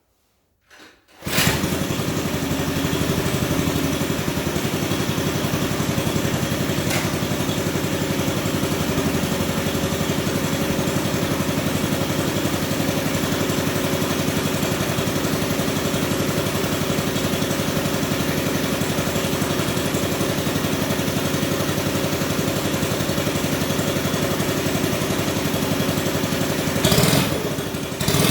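Small combustion engine of a hand-built RC Cat D11 bulldozer model starting about a second in after a couple of short knocks, then running steadily, with a brief surge in the sound near the end.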